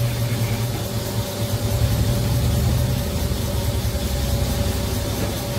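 A motor running steadily: a low mechanical hum with a faint, steady whine above it.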